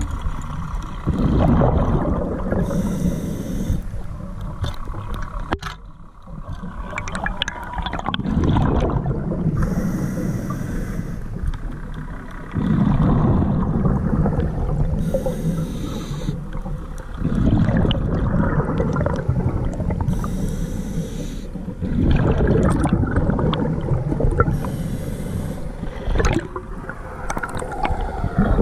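Scuba diver breathing through a regulator underwater: a hiss with each inhalation and bubbling with each exhalation, one breath every five seconds or so.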